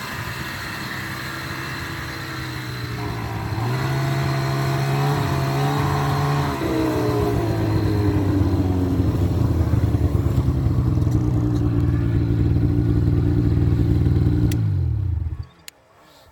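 Snowmobile engine running under the rider, revving up a few seconds in and then holding a steady cruising speed. Near the end the engine winds down and shuts off abruptly.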